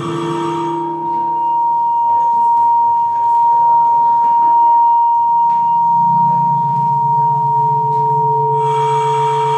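Acoustic feedback from a no-input setup of condenser microphones aimed at active loudspeakers. A loud, steady, pure whistling tone holds throughout, while lower feedback tones come and go beneath it. A low hum joins about six seconds in, and a fuller cluster of higher tones swells in near the end.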